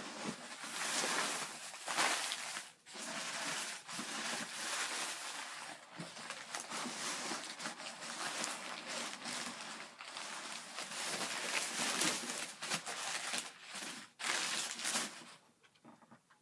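Packing material rustling and crinkling as it is handled and pulled out of a shipping box, in quick irregular strokes that die away near the end.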